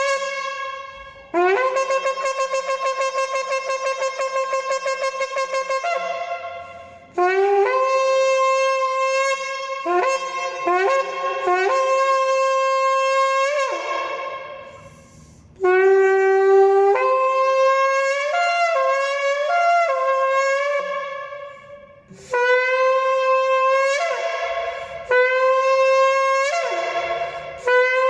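Shofar blown in a series of long blasts separated by short breaths, each sliding up from a lower note into a steady tone, with a few short notes between them. One early blast wavers rapidly throughout.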